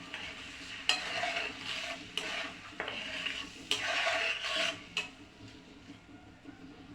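Spatula stirring and scraping a thick spice masala around a frying pan, several scraping strokes with sharp knocks against the pan over a faint sizzle, as the onion, ginger-garlic and spice paste is braised with a little water. The strokes die away in the last couple of seconds.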